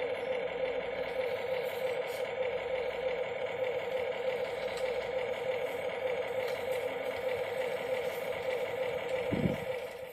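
Electric motor and gearbox of a small RC pickup truck whining steadily as it drives under load, with a brief low thump near the end.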